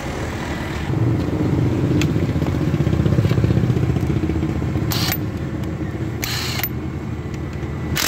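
An engine running with a steady low rumble, louder from about a second in. Short bursts from a cordless impact wrench sound in the second half.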